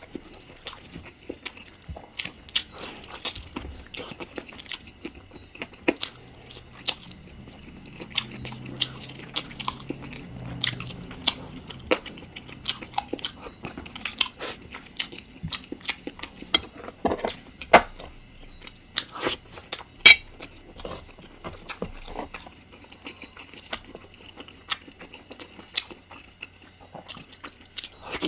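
Close-miked chewing and biting of spicy chicken curry: wet, irregular mouth clicks and crunches, with a few louder snaps around the middle.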